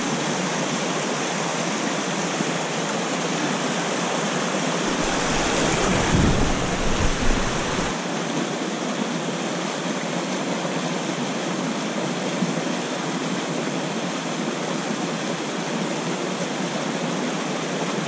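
Mountain creek water rushing over shale and a small waterfall pouring into a plunge pool, a steady hiss of running water. A low rumble joins in for about three seconds around five seconds in.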